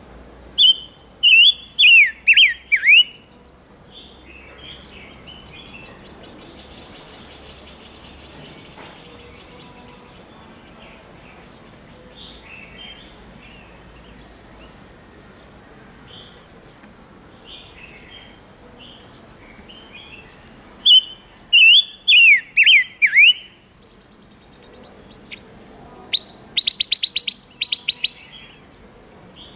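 Chim ngũ sắc lure bird calling: two loud phrases of about five swooping, falling whistled notes, one near the start and one about 21 seconds in, a fast rattling run of sharp notes near the end, and soft chirps in between. This is a lure call, played to excite male birds into singing.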